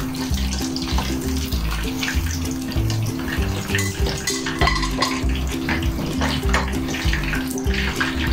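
Pork belly deep-frying in hot oil, a steady sizzle with scattered crackles as the skin crisps, under background music.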